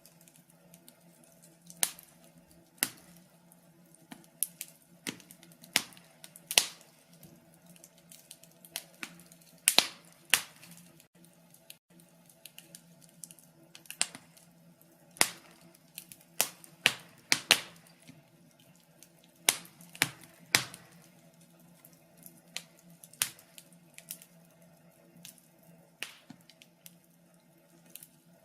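Wood fire burning in a fireplace, crackling with sharp, irregular pops and snaps, about one every second or so, some louder than others, over a faint steady low hum.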